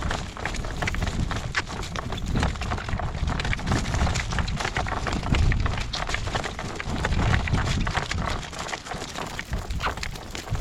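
Hoofbeats of a horse being driven: many quick hoof clicks over a steady low noise.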